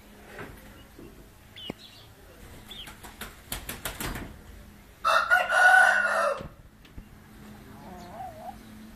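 A rooster crows once about five seconds in, a loud call lasting over a second, just after a quick burst of sharp slaps of wing-flapping. Faint short bird chirps come earlier.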